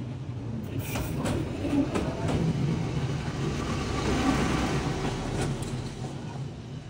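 Passenger train carriages rolling past at close range: a steady low rumble of wheels on rails, with occasional sharp clacks.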